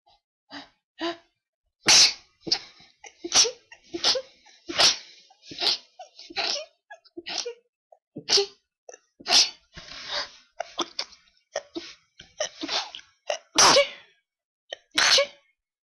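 A person sneezing over and over in a long sneezing fit: a quick run of short sneezes of varying force, the strongest about two seconds in and two more close together near the end.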